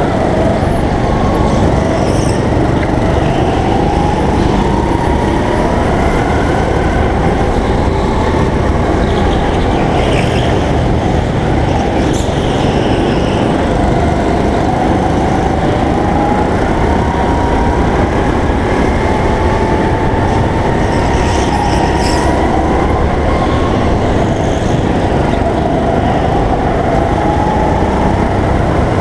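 Go-kart motor heard from on board, running hard over a constant low rumble. Its pitch rises slowly, drops back and climbs again several times as the kart speeds up and slows.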